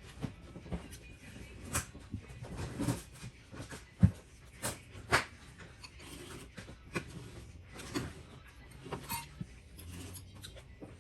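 Irregular small clicks and knocks, as of objects being handled, with one sharper knock about four seconds in.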